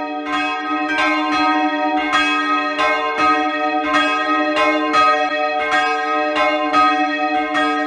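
Three church bells ringing together, their strokes falling about three times a second and overlapping, each bell's tone ringing on between strikes.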